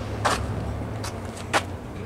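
Steady low engine rumble, with two short scuffs about a second and a quarter apart.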